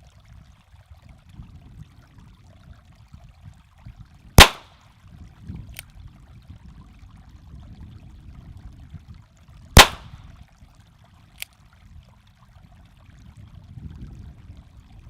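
Two single shots from a Ruger Single Six .22 revolver, about five seconds apart, each a sharp crack with a short ring-out. A faint click follows each shot after about a second and a half.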